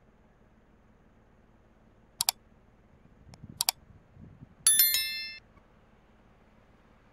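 Subscribe-button overlay sound effect: two quick double mouse clicks about a second and a half apart, then a short ringing notification-bell chime.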